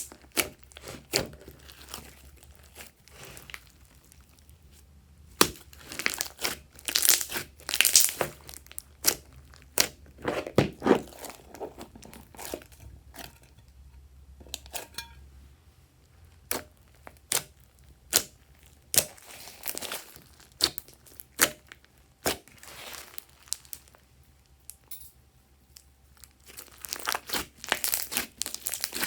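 Glossy slime being squeezed, stretched and folded by hand, giving irregular bursts of sticky crackling and popping with quieter pauses in between.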